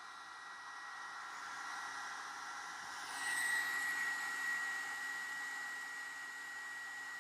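Revlon One-Step hair dryer brush running: a steady rush of air with a high motor whine, growing louder about three seconds in.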